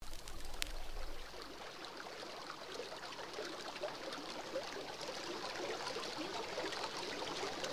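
Pet water fountain trickling steadily, with one sharp click about half a second in.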